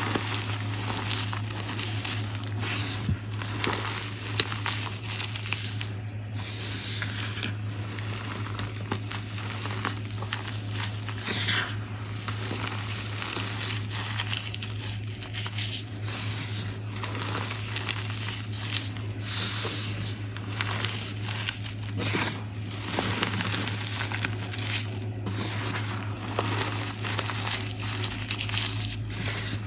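Hands squeezing, crumbling and sifting a heap of dry white powder with glitter mixed in: soft continuous crunching and crumbling, with several longer hissing pours as handfuls of powder fall back onto the pile.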